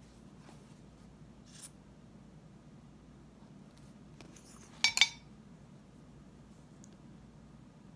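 A short clatter of small hard objects, craft tools or a bottle handled on the worktable, about five seconds in, with a few faint ticks and handling noises against low room hum.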